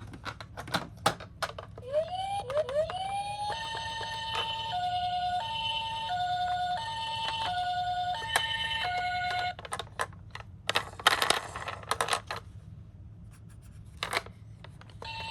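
Toy ambulance's electronic siren: a couple of short rising wind-up tones, then a two-tone hi-lo "pee-poh" wail alternating a bit under once a second for about six seconds before it stops. Plastic clicks and rattles of the toy cars being handled come before and after.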